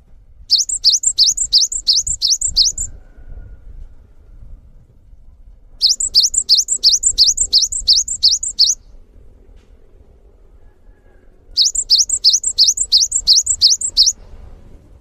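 Cinereous tit (gelatik batu) singing its long 'wucit' song in three bursts of two to three seconds each. Each burst is a quick run of repeated high, sweeping notes, about four a second, with pauses of about three seconds between bursts.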